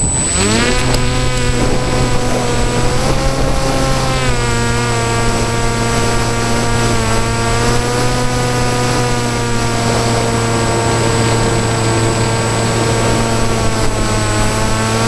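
Brushless electric motor and propeller of a PopWing foam flying wing, spinning up sharply at the start, then running steadily with small shifts in pitch as the throttle changes.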